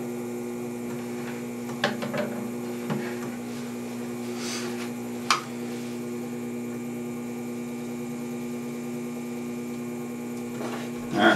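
Electric potter's wheel running with a steady, even hum, broken by a few light knocks and one sharp click about five seconds in.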